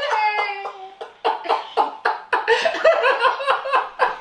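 Coughing mixed with laughter in a run of short bursts, about two or three a second, after a brief voiced sound at the start.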